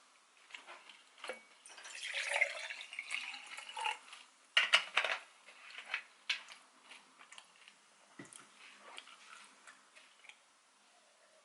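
Eating sounds close to the microphone: utensils clicking against a dish along with wet mouth and liquid noises. The sounds come irregularly, the loudest a cluster of sharp clicks about four and a half seconds in.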